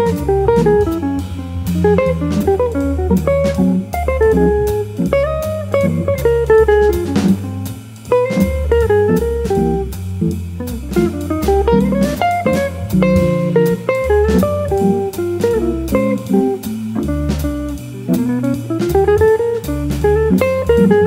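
Jazz organ trio music: electric guitar playing a flowing melodic line over the organ's walking bass line, with drums keeping time on cymbals.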